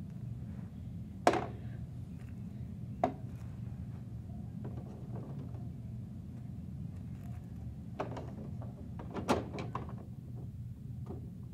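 Sharp plastic knocks and clicks from a Bruder toy garbage truck being handled as crumpled tissue paper is loaded into its rear hopper. The loudest knock comes about a second in, another at about three seconds, and a quick cluster of several near the end, over a steady low background hum.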